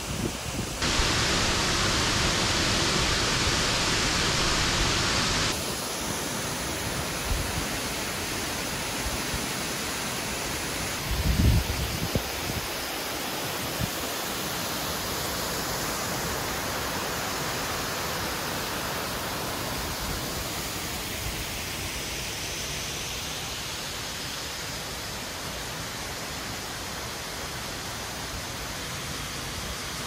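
Flowing water from a shallow rocky river and a waterfall: an even rushing hiss that jumps in level at a few cuts and is loudest in the first few seconds. A brief low thump comes about 11 seconds in.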